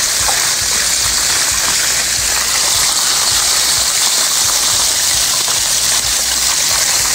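Chicken pieces deep-frying in a pot of hot oil: a steady sizzle of bubbling oil that keeps an even level throughout.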